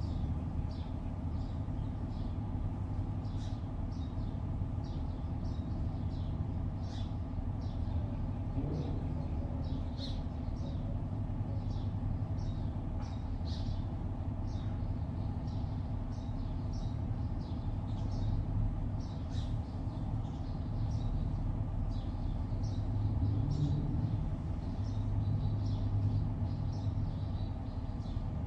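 Steady low hum of distant city traffic, with small birds giving short, high chirps about once or twice a second.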